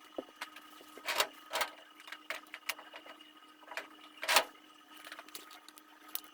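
A handful of sharp clicks and knocks, a few of them louder, like hard objects being handled and set down, over a steady faint electrical hum.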